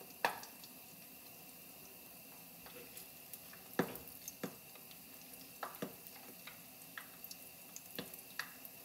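Apple fritter batter frying in a pot of hot oil: a faint steady sizzle broken by scattered sharp pops and clicks, the loudest about a quarter second in and near four seconds in.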